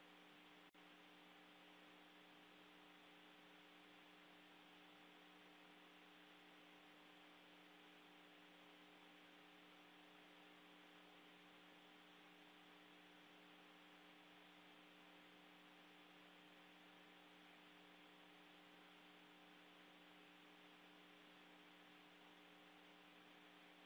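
Near silence: a faint, steady electrical hum with hiss, unchanging throughout.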